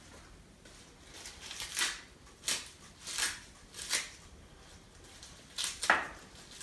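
Fresh curly kale leaves being torn off their tough stems and ripped into pieces by hand: a series of short, crisp rips and rustles, about six of them.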